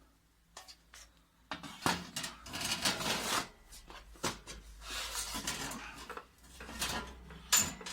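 Irregular clicks, clatter and scraping of plastic and metal copier parts being handled and fitted back together by hand, with a sharp click near the end.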